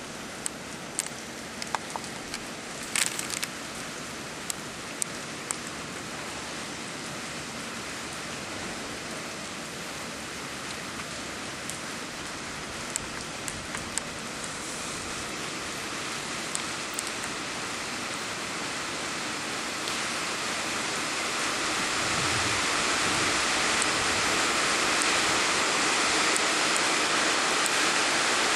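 Heavy rain pouring down in a steady hiss, with scattered sharp taps of single drops in the first half. The downpour grows steadily louder from a little past halfway on.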